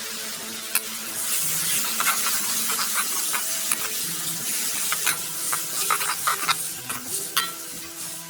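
Food sizzling in hot oil in a pan, swelling about a second in, with a utensil stirring and scraping, making frequent short clinks against the pan.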